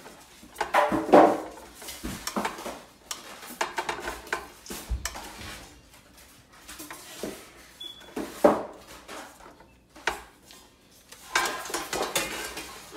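Nonstick pan of a Presto rotating pizza oven being handled and fitted onto the oven's base: irregular clatters, knocks and scrapes, loudest about a second in and again at about eight and a half seconds.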